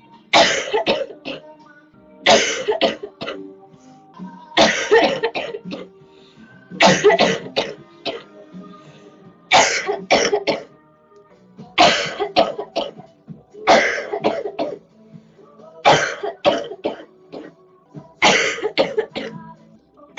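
A girl coughing in repeated fits, about one every two seconds, nine in all. Each fit is a hard cough followed by two or three shorter ones, with faint background music between them.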